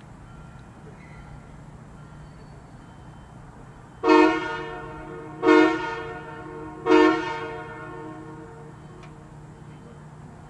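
Train air horn sounding three short blasts, evenly spaced about a second and a half apart, each a rich chord that trails off in an echo.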